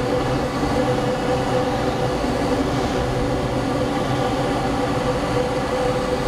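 Ultralight aircraft's engine and propeller droning steadily, heard from inside the cockpit, with a constant tone running through it.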